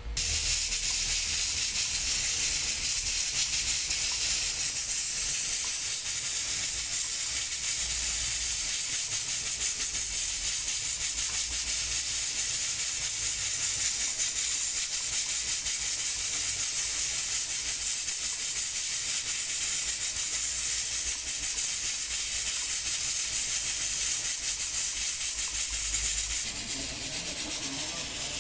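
Aluminium pressure cooker venting steam through its weighted valve: a loud, steady hiss that starts abruptly and eases off a little near the end. The cooker is up to pressure.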